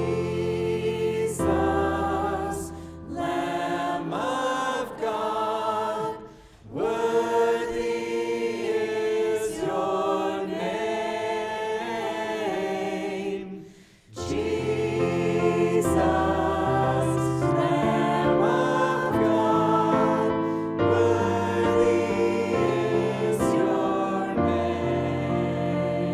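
A group of voices singing a worship song over sustained keyboard chords. The music thins briefly about six seconds in and nearly stops for a moment halfway through before the singing resumes.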